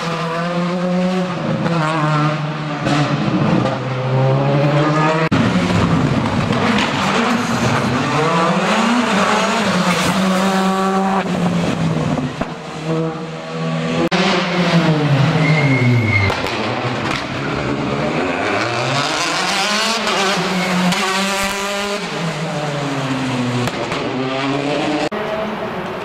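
Rally car engines revving hard through the gears as the cars pass one after another, the pitch repeatedly climbing and dropping at each gear change and sweeping down under braking, with tyre noise on the wet tarmac.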